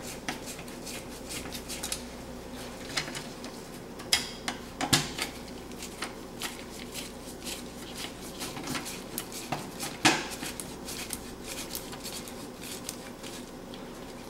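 Scattered small metallic clicks and taps of a screwdriver and gloved hands working the screws of a new oven terminal block as it is fastened in place, with two sharper clicks, one about a third of the way in and one about two thirds in.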